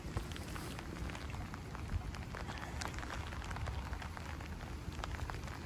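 Steady rain, with many separate drops ticking close by.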